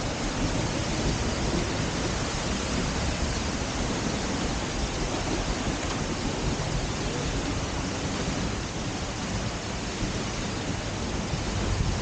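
Seljalandsfoss waterfall pouring into its plunge pool close by: a loud, steady rush of falling water.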